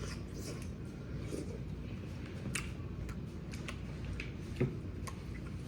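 Eating sounds: scattered small clicks and smacks of chewing and handling food over a steady low background hum.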